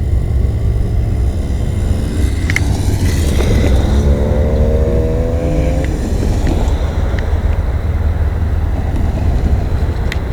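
GE diesel freight locomotives running with a deep, steady rumble. About three seconds in, an engine tone rises slightly for a few seconds, with a few sharp clicks here and there.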